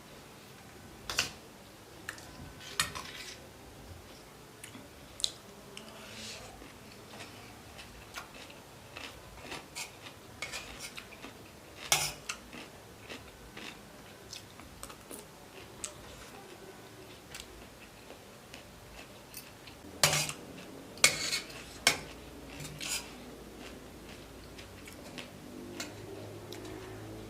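Cutlery clinking and scraping against a plate while eating fried rice with noodles: scattered sharp clicks, the loudest a few strokes close together about two-thirds of the way through.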